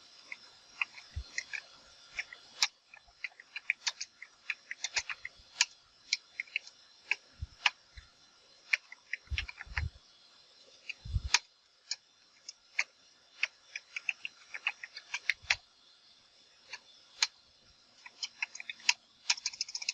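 Computer keyboard being typed on: irregular keystroke clicks, with a few heavier, deeper key thumps among them.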